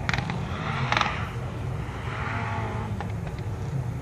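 Distant rally car engine revving across the circuit, its pitch rising and falling. Two sharp knocks sound at the start and about a second in.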